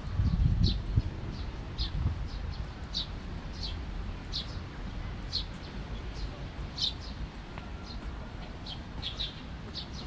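A small songbird chirping over and over: short, high, downward-sliding notes repeating about every half second. There is a low rumble on the microphone in the first second.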